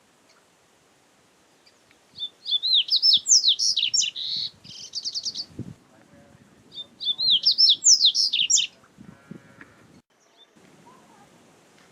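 Double-collared seedeater (coleiro) singing: two phrases of fast, high twittering notes, the first starting about two seconds in and running about three seconds, the second starting about seven seconds in and running about two seconds.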